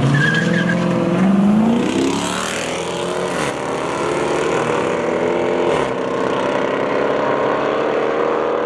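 Two cars accelerating hard in a street race, their engines revving up through the gears. The engine note climbs steeply, drops back twice at the gear changes, then holds nearly steady as the cars pull away down the road.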